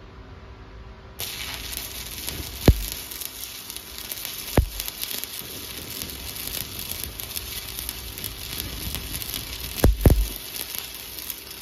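Stick-welding (SMAW) arc from a 1/8-inch 7018 electrode at about 108 amps, running vertical-up on a test plate: the arc strikes about a second in and then runs with a steady crackle, with a few loud pops along the way.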